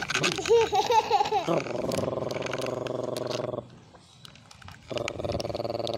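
A person's voice making toy engine noises: a wavering growl, then two long, steady buzzing sounds with a short break in the middle.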